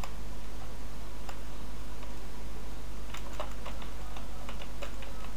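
Computer keyboard keystrokes clicking: a stray keystroke or two, then a quicker run of typing from about three seconds in, over a steady low hum.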